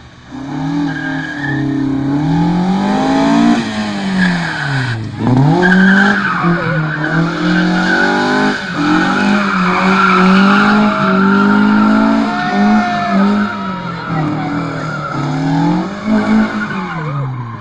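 Classic Alfa Romeo saloon's engine revving up and down over and over as the car is thrown around in tight circles, its tyres squealing and skidding on the asphalt.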